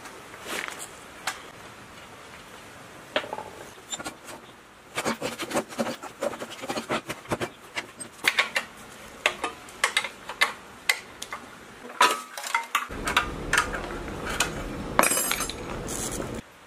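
Hand tools and metal parts clinking and knocking in an irregular run of sharp strikes as a rusty small petrol-engine water pump is dismantled: a wrench and screwdriver work at its rusted fastenings and parts are set down on the bench. A steady rough noise sits under the clinks in the last few seconds.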